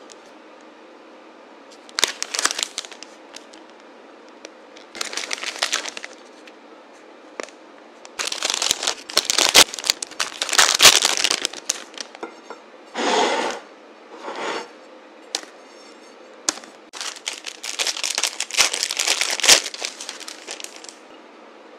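Clear plastic cookie bags crinkling and rustling as they are handled and opened, in several separate bursts with quiet gaps between them.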